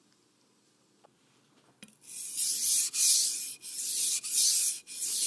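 Near silence for about two seconds, then a kitchen knife drawn back and forth across a wet King #800 whetstone. It makes a steady rhythm of scraping strokes, about five, each roughly half a second long.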